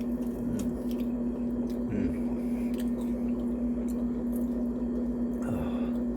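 Close-up chewing and mouth smacking of crunchy mini tacos in cheese sauce, wet and squishy with scattered clicks, over a steady low hum. Three short low sounds falling in pitch come through, one near the start, one about two seconds in and one near the end.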